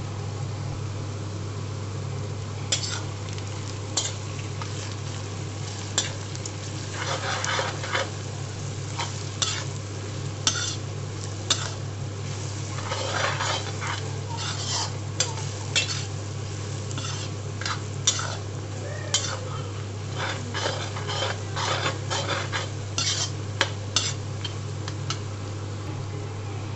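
A steel spoon stirring and scraping sliced onions and chili-spiced masala frying in mustard oil, with sizzling and irregular clinks and scrapes of the spoon against the pan starting about three seconds in. A steady low hum runs underneath.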